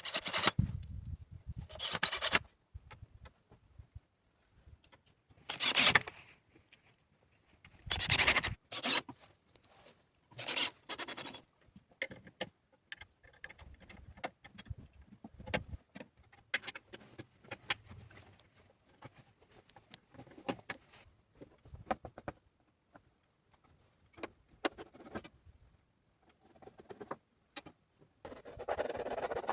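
Irregular scrapes and knocks of hand work with tools and building materials: loud bursts at the start and about 6, 8 and 10 seconds in, with fainter clicks and taps between.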